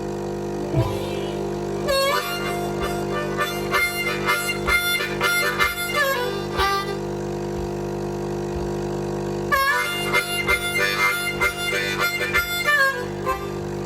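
Blues harmonica in G playing two phrases with bent notes, the first from about two seconds in and the second from about halfway in to near the end. Under it, and alone in the gap between the phrases, a coffee machine's steady hum sounds in the same key as a drone.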